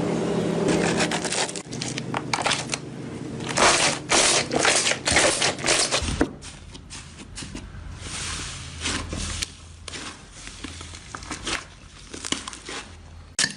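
Slime being worked by hand: pressed, stretched and squeezed in a run of short noisy squishes, thickest in the middle and sparser toward the end. A low steady hum sounds under the first second and a half, then stops.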